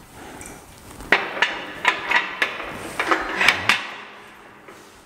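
Steel parts of a drywall panel lift knocking and clanking together as the top cradle is fitted onto the mast. About nine sharp metal knocks come in quick succession, starting about a second in.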